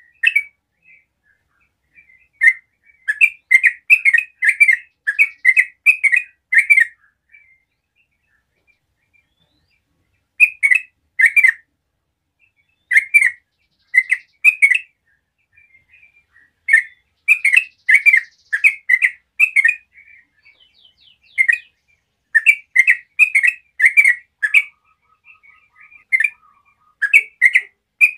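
A bird calling in bursts of short, sharp repeated notes, several a second, with pauses of a second or two between bursts.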